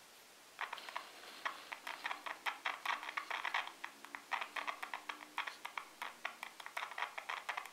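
Toyota TPL-1650 4 Ω car speaker crackling with a fast, irregular run of faint clicks from about half a second in, as the analog multimeter's probes on the ohms range make and break contact on its terminals. The sound shows that the rewound voice coil has continuity and the speaker works.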